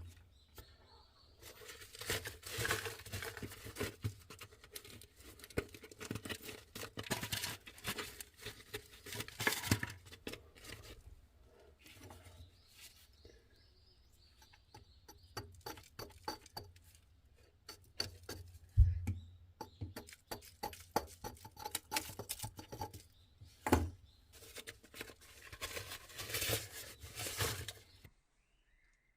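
Intermittent rustling and crinkling with many small clicks, as of things being handled, with a sharper knock about 19 s in and another near 24 s.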